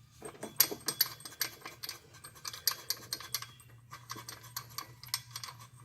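Irregular metallic clicks, taps and scrapes as a new idler pulley and its bolt are worked onto their mount by hand, over a faint steady low hum.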